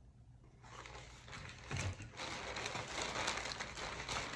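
White plastic poly mailer bag crinkling and rustling as it is handled and pulled open, starting about a second and a half in, with a dull bump near two seconds in.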